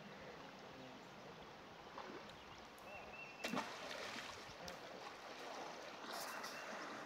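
Faint running and splashing water of a shallow river being waded, with a single sharp knock about three and a half seconds in.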